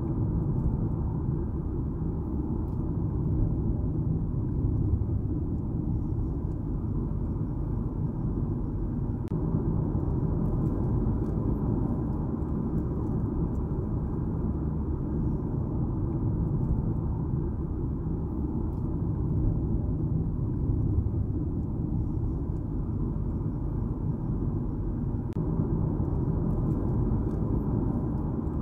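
Steady low rumble of a car driving at an even pace, road and engine noise with no change in speed.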